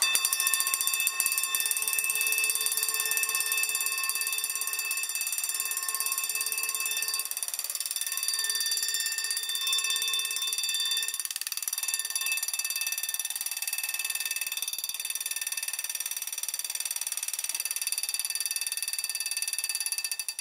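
Spring-wound brass gong of a MasterGuard MG-50 heat-activated fire alarm ringing continuously under rapid hammer strikes, set off by removing its heat-detecting disc as in a fire. It starts suddenly and rings steadily until it is stopped at the end.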